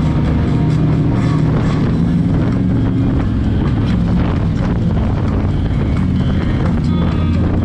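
Motorcycle engine running steadily at road speed, heard from a camera on the moving bike, with other motorcycles riding close by and wind noise on the microphone.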